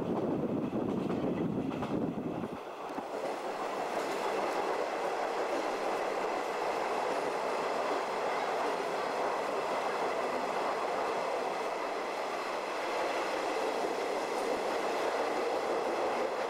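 Running noise of a JNR 50-series passenger coach heard through its open window: a steady rush of wheels on rail, passing through a tunnel. About three seconds in, the deep rumble drops away and leaves a steady hiss.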